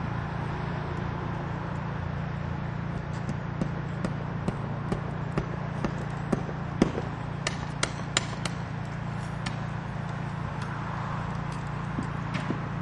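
Irregular sharp taps and knocks, about two a second for several seconds mid-way, from masonry tools striking brick during chimney building. A steady low hum runs underneath.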